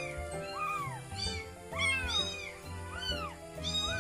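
Very young kitten mewing repeatedly, about five high-pitched cries that each rise and fall in pitch, over background music.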